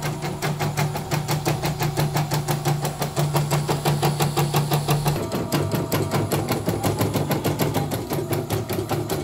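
CNY portable embroidery machine stitching, a fast, even run of needle strokes, about seven a second, over a steady motor hum. It is test-running with its broken thread-tension part replaced, and runs smoothly.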